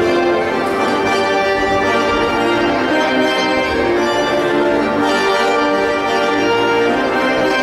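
Instrumental music with held, organ-like chords.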